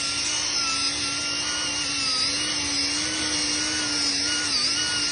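Capri Tools 1 hp air-powered right-angle die grinder with a Roloc pad running at high speed and smoothing a surface: a steady high whine over a hiss, its pitch dipping briefly about two seconds in and again near the end.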